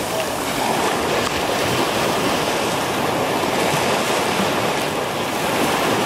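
Ocean surf washing up a sandy beach: a steady rush of breaking waves and foaming wash in the shallows, with some wind on the microphone.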